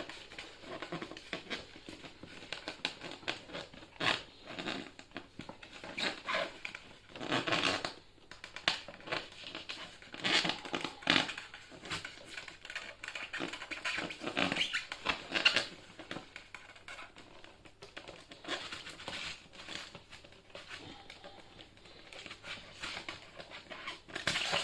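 Hands working a rubber inner tube and tyre off a scooter wheel: irregular rubbing, scratching and crinkling with a few sharp knocks, loudest about fifteen seconds in.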